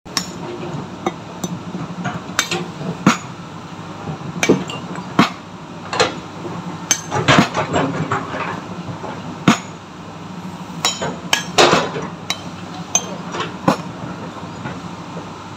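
Hand hammer striking a large boulder again and again as it is split by hand: sharp stone-on-metal clinks, irregular, roughly one a second with a few quick flurries. An excavator's engine runs steadily underneath.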